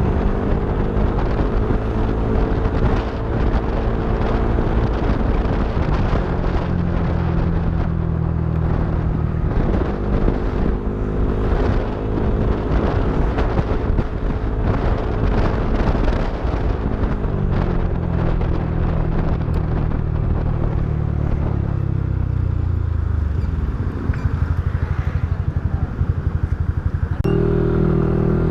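Yamaha NMAX v3 scooter's single-cylinder engine running through a TSMP 2.5 exhaust, unmuffled raw exhaust note. The engine speed holds steady for stretches, rises and falls, drops to a slow low putter after about 22 seconds and picks up again near the end.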